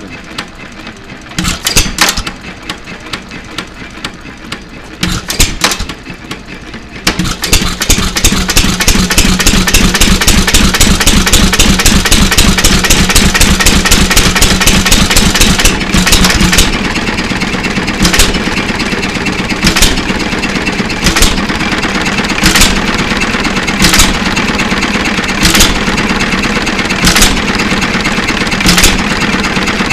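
United 2.5 hp hit-and-miss engine running. For the first several seconds it turns slowly, with only an occasional firing stroke; one governor-weight spring is off, which lets it run very slow. About seven seconds in it gets much louder, with a fast unbroken run of strokes, then around sixteen seconds it settles into a steady clatter with a louder firing stroke about every second and a half.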